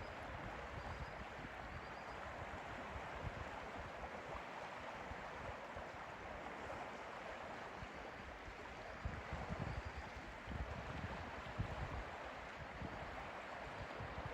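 Lake water lapping and moving in a steady wash, with gusts of wind rumbling on the microphone that grow stronger near the end.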